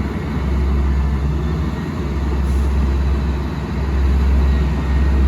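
Asphalt paving machinery's diesel engines running with a steady, heavy low rumble as the paver spreads fresh asphalt across the road.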